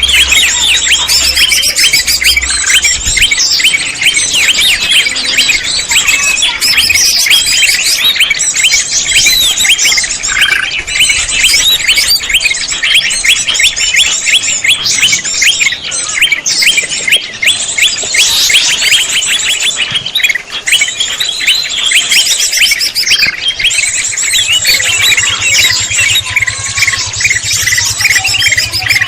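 Green leafbird (cucak ijo) calls: a dense, continuous run of rapid chirps and twitters, the kind of lure recording used to attract the birds for trapping. A faint low hum comes in near the end.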